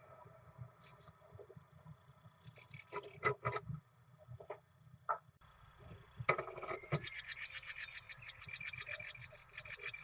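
Great tit nestlings begging: rapid, high-pitched cheeping calls, a short burst about three seconds in and a longer run from just past six seconds to the end, as the parents feed them. Scrapes and knocks of the adults moving in the nest box, the loudest a knock with wing flutter about six seconds in.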